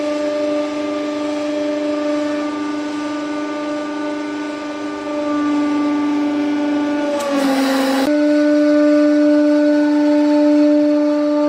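Hydraulic press pump whining with a steady pitched hum as the ram presses down. About seven seconds in, the pitch dips and there is a brief noisy break, then the whine carries on, a little louder.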